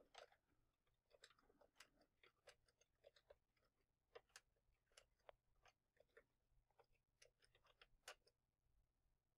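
Faint computer keyboard typing: irregular key clicks, several a second, which stop a little before the end.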